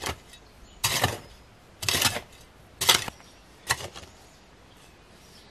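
A hoe striking and scraping into bare soil, four strokes about a second apart.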